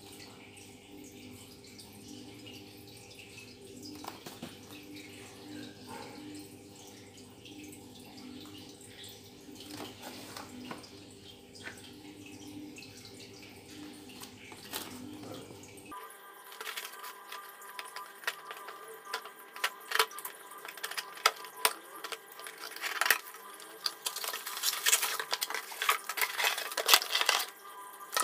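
Hands handling a cardboard drill box: quiet at first, with a low steady hum and a few light taps. About halfway through it changes abruptly to louder crinkling of plastic bags and clicks and clatter as the drill, charger and manual are unpacked, getting busier toward the end.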